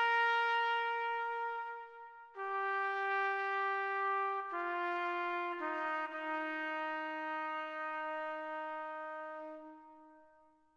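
Solo trumpet playing a slow melody of about four long held notes, then fading out near the end.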